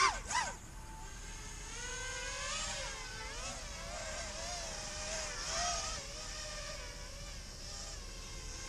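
XHover Stingy micro quadcopter's electric motors whining, the pitch wavering up and down as the throttle changes, with a quick sharp rise and fall right at the start.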